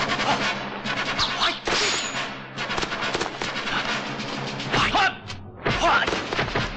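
Film fight sound effects: a rapid run of punch and kick impacts, sharp whacks and thuds.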